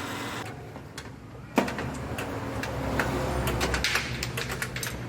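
Metal clicks and clinks of tools on a Suzuki Vitara car AC compressor being taken apart. A single sharp click comes about one and a half seconds in, then a run of quick light clicks in the second half, over a low steady hum.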